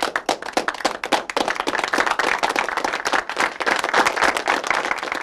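Applause: many hands clapping in a dense, steady patter.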